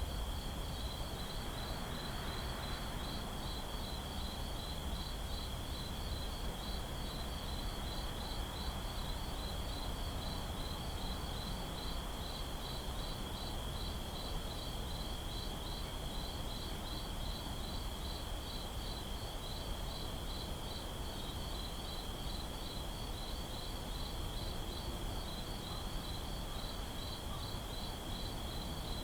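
Night ambience of crickets chirping in a rapid, regular, unbroken rhythm over a low, steady background hush.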